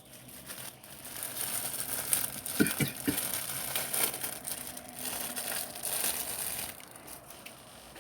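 Plastic food packaging crinkling as it is handled and opened, starting about a second in and stopping near the end.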